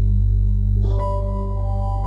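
Background music of steady, held keyboard chords; the chord changes about a second in.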